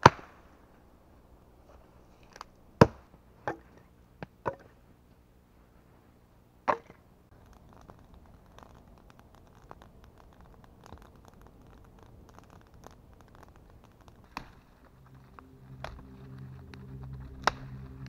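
Scattered sharp snaps and cracks of dry wood, branches breaking, about ten in all, the loudest about three seconds in. Background music comes up over the last few seconds.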